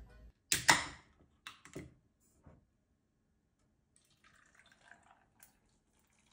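A few sharp clicks and knocks, two loud ones close together about half a second in and quieter ones after, then a faint patter of small noises.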